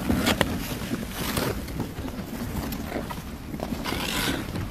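Ice skate blades scraping and hissing across rink ice in several separate strokes, over a low rumble of wind on the microphone.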